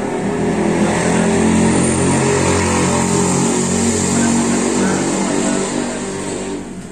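A motor vehicle engine running close by, swelling over the first couple of seconds and fading near the end.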